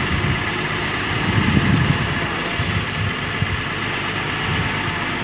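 Truck engine idling, a steady low rumble.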